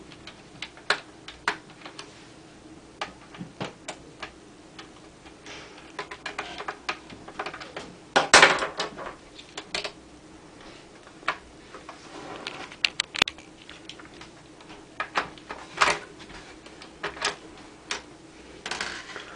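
Irregular small clicks and clacks of a screwdriver working the screws of a laptop's plastic RAM compartment cover and the cover being handled, a louder cluster of clatter about 8 seconds in.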